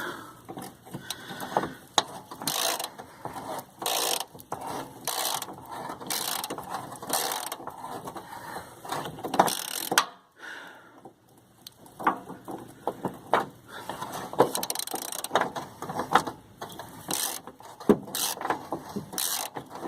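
Hand ratchet clicking in repeated strokes as it backs out a loosened rear body mount bolt, with a brief pause about ten seconds in.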